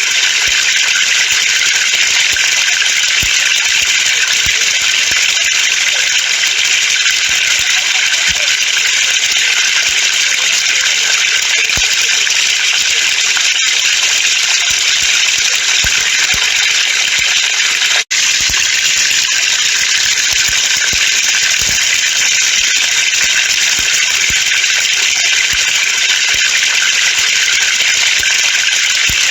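Water falling from a pipe and splashing, a steady dense hiss of drops and trickle, broken for an instant about 18 seconds in.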